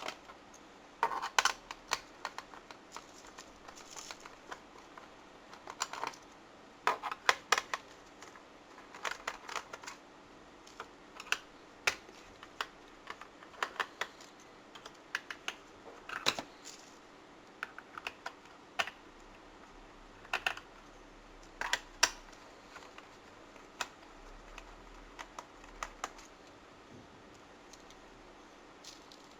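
Small sharp clicks and taps of a screwdriver and hands working out the screws on the plastic underside of a Toshiba Satellite Pro C50 laptop, coming in irregular clusters.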